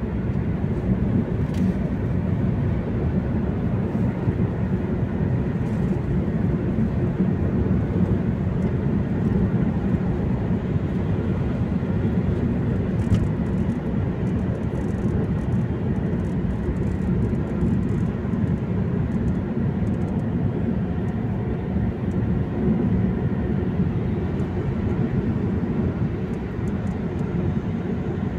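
Steady low rumble of tyre and engine noise heard inside a car cruising on a highway.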